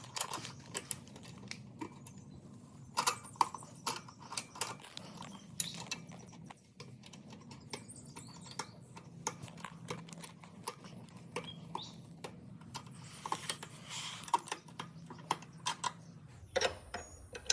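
Irregular metal clicks and clinks of a wrench being worked on the go-kart's chain adjuster and motor mount bolts, over a faint low hum.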